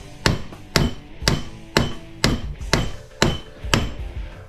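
Hammer blows on the welded steel frame of a light-fixture transformer clamped in a vise, about two a second, each with a short metallic ring, beating the partly ground weld to break it loose. The hammering stops near the end.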